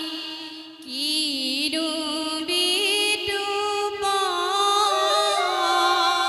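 Women singing an Assamese dihanam devotional song together, holding long wavering notes; the singing drops away briefly just under a second in, then resumes.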